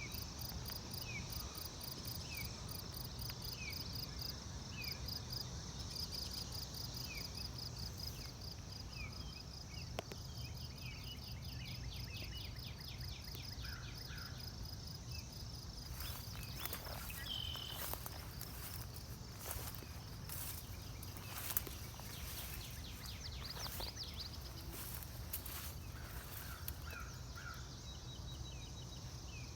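Outdoor field ambience: insects chirp in fast, steady pulse trains over a low constant rumble, with a short repeated call about once a second for the first third. In the second half a series of brief clicks and rustles comes and goes.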